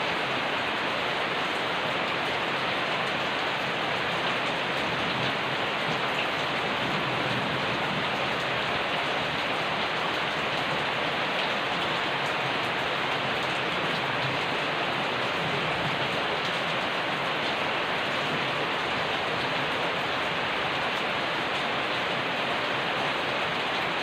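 Steady rain falling and pattering on surfaces, an even unbroken hiss.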